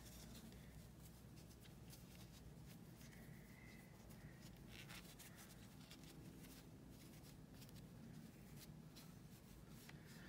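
Near silence: faint rustling and small scattered ticks of a metal crochet hook pulling yarn through stitches, over a low steady hum.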